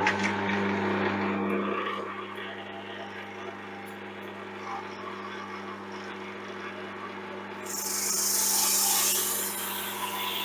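Mac Afric 560mm drum sander running with a steady motor hum. About eight seconds in, a louder, high hiss joins it as a board is fed through and the abrasive drum skims its surface.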